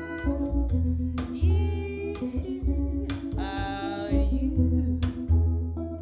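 A folk song played live on guitar and double bass, with a woman singing two phrases over picked guitar notes and low, held bass notes.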